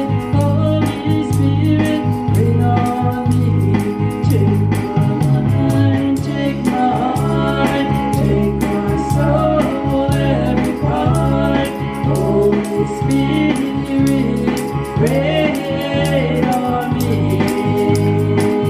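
A woman singing a gospel song into a microphone over instrumental accompaniment with a steady beat.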